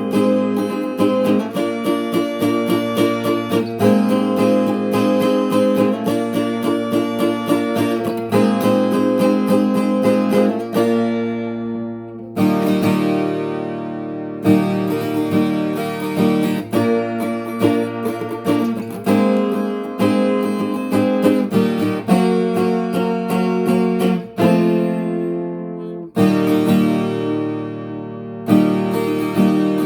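Brazilian viola caipira played solo, plucked and strummed in a rhythmic tune. Twice, about twelve and twenty-five seconds in, a chord is left to ring and fade before the playing picks up again.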